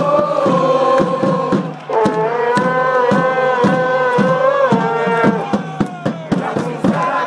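A large crowd of football supporters singing an away chant in unison, with long held notes over a steady beat of about three strikes a second. The singing breaks off briefly about two seconds in, then starts a new line, and turns ragged near the end.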